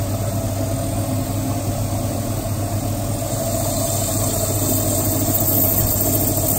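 Gryphon coral bandsaw running steadily, its blade cutting through a Lobophyllia coral colony with water splashing off the blade.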